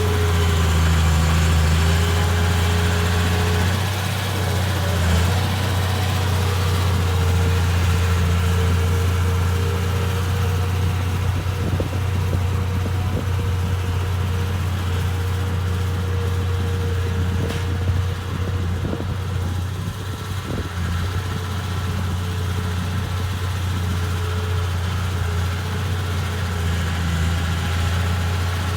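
Bulldozer's diesel engine running steadily at low speed with a deep, even hum, with a few faint knocks partway through.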